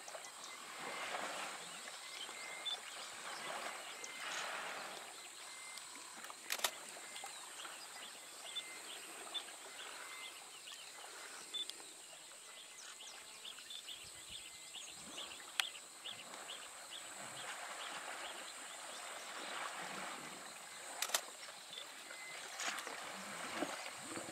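Water sloshing and splashing around two African elephant bulls wrestling trunk to trunk in a waterhole, rising and falling in waves. A few sharp clicks and a steady high-pitched whine run in the background.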